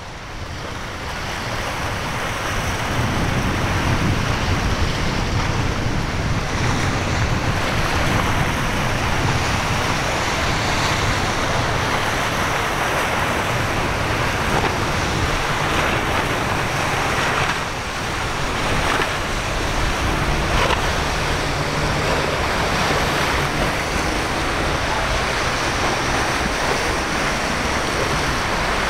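Ocean waves breaking and surf washing, with wind buffeting the microphone and the low drone of outboard boat engines under it.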